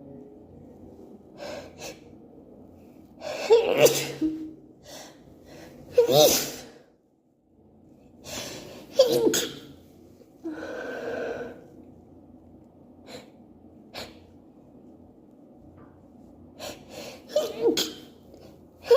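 A woman's allergy sneezing fit: several sneezes in a row, each led in by a gasping in-breath, with sniffs and breaths between them.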